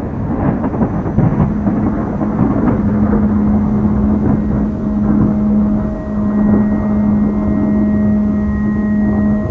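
Eerie ambient soundscape: a deep, rough rumbling noise, with a steady low drone tone coming in about two seconds in and fainter higher ringing tones joining near the end.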